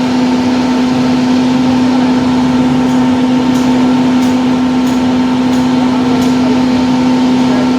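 Ajax 4300 self-loading concrete mixer running, a loud steady engine hum with an even pitch. Faint regular ticks come in about halfway through, roughly one and a half a second.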